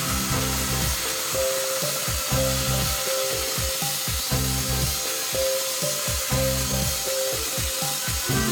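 Background music with a melody and a beat, over the steady hiss of a band sawmill blade cutting wood.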